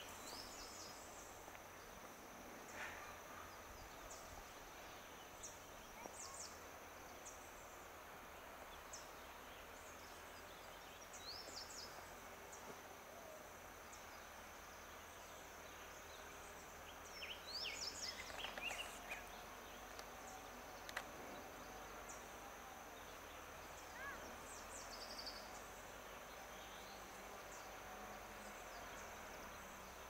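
Quiet woodland ambience: a steady, high-pitched insect drone with scattered short bird chirps, busiest from about 17 to 19 seconds in, and a single sharp click about 21 seconds in.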